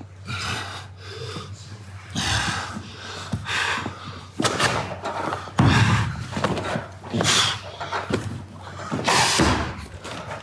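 Heavy, forceful breathing and straining of two men grappling, in irregular blasts about every second. Occasional bumps of bodies against the mat and cage fence come with them.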